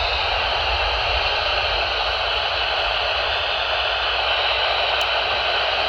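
Weather radio receiver giving a steady, loud static hiss with no broadcast voice coming through.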